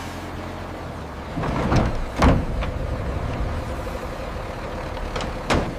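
Industrial machinery running with a steady low hum, broken by sharp metallic clunks: a pair about two seconds in, the loudest among them, and another pair near the end.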